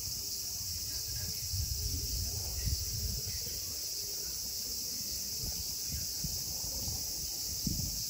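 A steady, high-pitched chorus of insects with an even drone, over an irregular low rumble and a couple of soft knocks.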